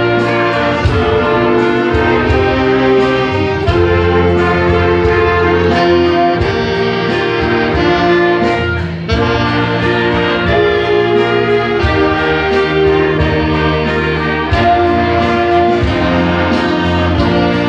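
An orchestra with prominent brass playing a piece of sustained chords that change every second or two, with a short break in the sound about nine seconds in.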